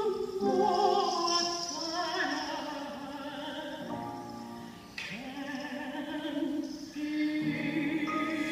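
A woman singing a slow ballad in a classical style with vibrato, accompanied by violin, in a quiet passage.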